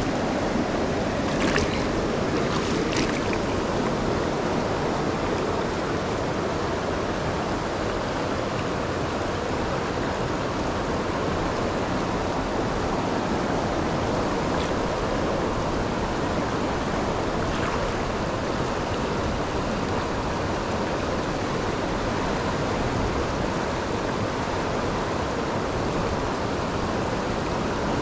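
Steady rush of flowing creek water, with a couple of light ticks near the start.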